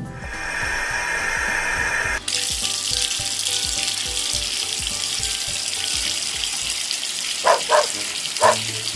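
Water running and splashing into a shallow plastic toy pond as it fills. The sound is steady throughout and changes character about two seconds in. A few short dog barks come near the end.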